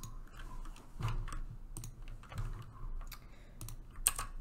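Computer keyboard being typed on: scattered single keystrokes and short runs of taps at uneven intervals, over a faint steady low hum.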